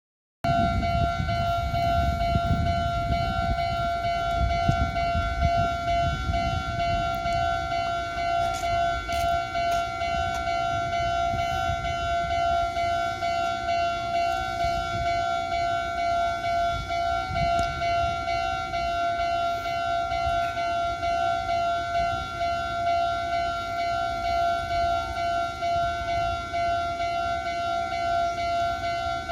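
Japanese railway level-crossing warning bell ringing continuously with a steady, slightly pulsing tone, over the low rumble of a passing train that is heaviest in the first few seconds.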